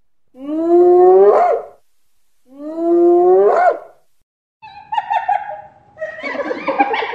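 Two long whooping calls from a wild carnivore, each rising in pitch over about a second and a half. From about the middle on, a run of shorter, rougher calls follows.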